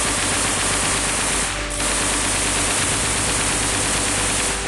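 Machine gun firing long bursts of automatic fire right beside the microphone, loud enough that the shots overload into one continuous hiss. There is a brief break about a second and a half in, and the fire stops suddenly at the end.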